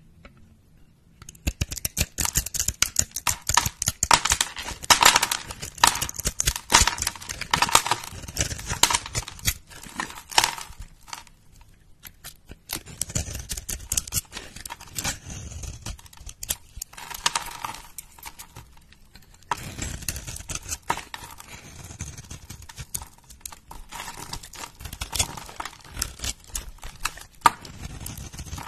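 A utility knife and small scissors cut and crumble a dry bar of soap: dense, crisp crackling and crunching with many sharp little snaps as flakes break off, starting about a second in and easing off briefly twice.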